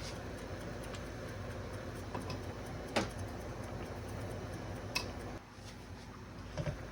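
A handful of short, sharp clicks and taps, the loudest about three seconds in, over a steady hum that drops away about five and a half seconds in.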